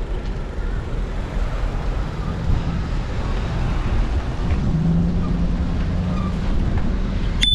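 Steady low rumble of wind and road noise on a bicycle-mounted GoPro riding slowly along a busy street, with a vehicle's engine humming close alongside through the middle. A bicycle bell dings once at the very end.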